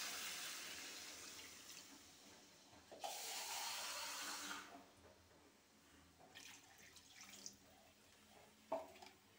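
Water poured in a stream into a metal pot of fried, spiced chicken, in two pours, the second starting about three seconds in. It is being added to the cooked-down masala to make a thin curry gravy. A short knock comes near the end.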